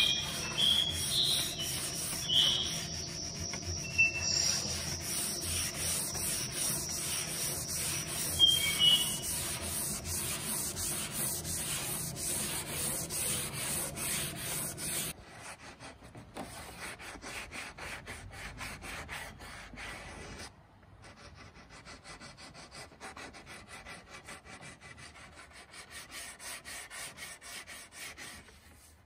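Hand-sanding the wood of a mid-century coffee table with sandpaper: repeated back-and-forth rubbing strokes, softer from about halfway.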